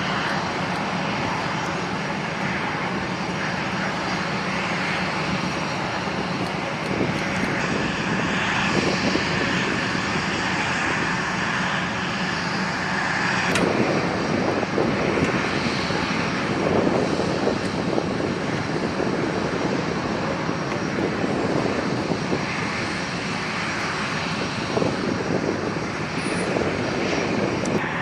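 Aircraft jet engines running steadily, with a faint whine on top, and one sharp click about halfway through.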